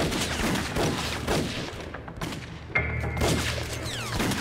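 Scattered rifle fire: many shots in quick, uneven succession, several a second, from a group of gunmen firing wildly.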